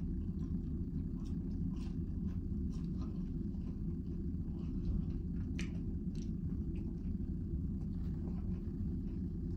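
A person chewing and crunching fried food, with small irregular mouth and utensil clicks, over a steady low hum in the room.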